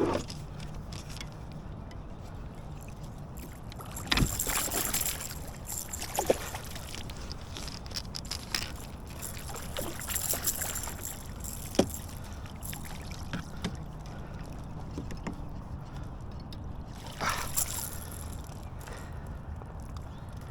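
Water splashing and sloshing around a fishing kayak, in three short bursts, with a couple of sharp knocks on the hull.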